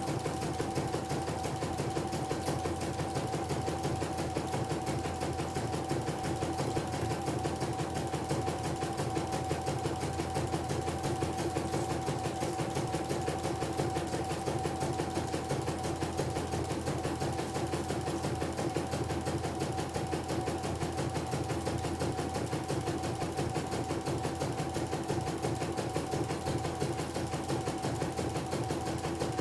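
Computerized embroidery machine stitching a design, its needle chattering at a fast, even rate over a steady motor hum.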